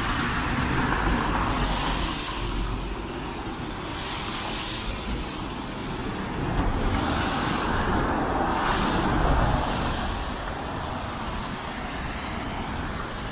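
Road traffic: cars passing on a city street with tyre and engine noise, swelling louder twice as vehicles go by, about a second in and again around the middle.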